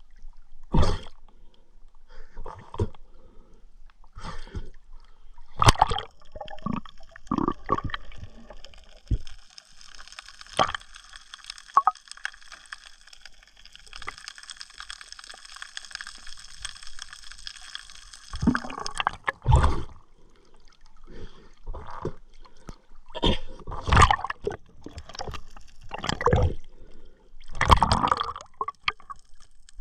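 Water gurgling and splashing in uneven bursts around a camera held in the sea, with a faint steady high tone in the middle stretch.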